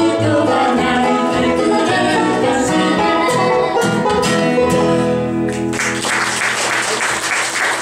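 Bluegrass band of five-string banjo, acoustic guitar and upright bass, with a woman singing, playing the last lines of a song and ending on a held chord. Audience applause breaks out about six seconds in.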